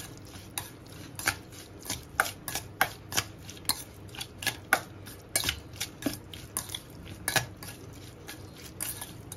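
Steel spoon stirring marinated chicken pieces in a stainless steel bowl, clinking and scraping against the bowl at an uneven pace of about two knocks a second.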